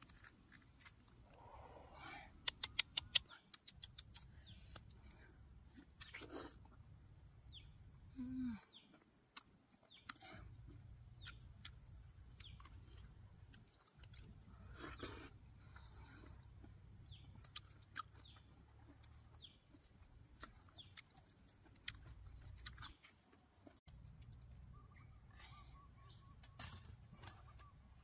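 Faint forest ambience: many short, falling chirp-like calls and scattered sharp clicks over a low rumble that comes and goes.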